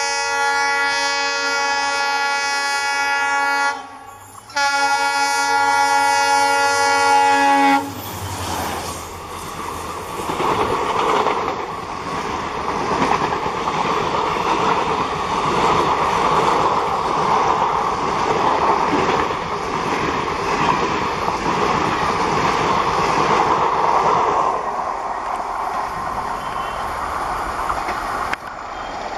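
WDP 4D diesel locomotive blowing its air horn in two long blasts as it approaches. It is followed by the loud rumble of the passenger coaches passing at speed, wheels clacking over the rail joints, which eases off in the last few seconds as the train moves away.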